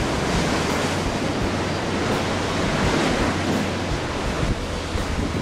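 Rough sea surging and breaking against a harbour breakwater, a steady wash of surf, with wind blowing on the microphone.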